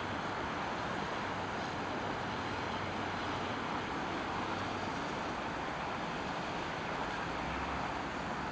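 Boeing 777 jet engines running steadily at low power as the airliner taxis after landing: an even, unchanging rush with a faint high whine.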